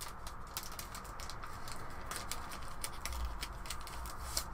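Faint scattered clicks and rustles of printed cardboard game cards being sorted by hand, over a low hum.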